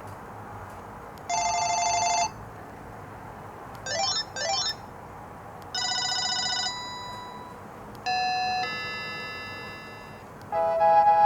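Panasonic KX-TG8231CB cordless phone playing its ringtones one after another, each a different electronic tone pattern: a short trilling ring, two quick rising chirps, a chime, a longer tone that fades away, then a melody starting near the end.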